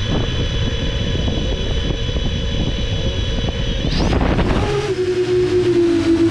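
Rekon 10-inch FPV quadcopter's motors idling with a steady high whine. About four seconds in, the throttle comes up: the pitch sweeps upward as the drone lifts off, and the propellers settle into a louder buzzing tone that wavers up and down in pitch.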